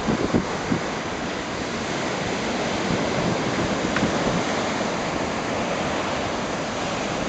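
Ocean surf washing on a sandy beach, a steady rush of noise that swells a little midway.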